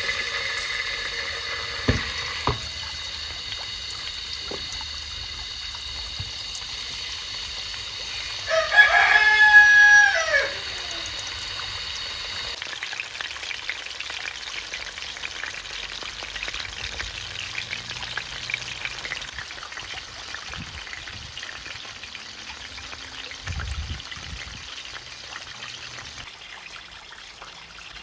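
A rooster crows once, about a third of the way in: a single loud call about two seconds long, over a steady background hiss.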